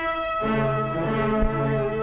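Orchestral film score with brass, sustained chords that change about half a second in.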